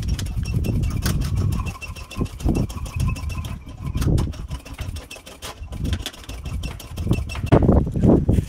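Foot pump being stepped on to inflate a scooter tyre: irregular heavy pumping strokes over a fast run of mechanical clicking.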